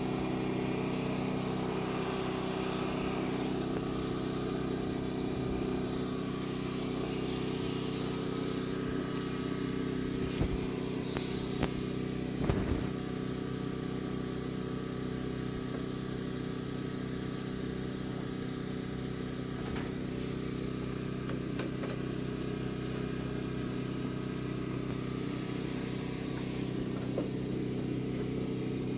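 A steady engine drone holding one even pitch, with a couple of short knocks about ten and thirteen seconds in.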